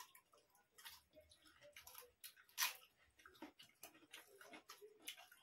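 Faint, scattered clicks and smacks of people eating rice and curry by hand from steel plates, with one sharper click about two and a half seconds in.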